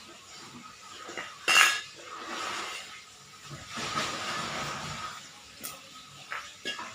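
Hard objects clinking and clattering, like tools and parts being handled, with one sharp loud clank about a second and a half in and a few lighter clicks.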